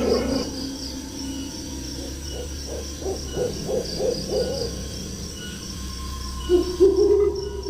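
Owl hooting: a quick series of short hoots, then a longer, wavering hoot starting near the end, over a faint steady chirring of crickets. The tail of a wolf howl fades out at the very start.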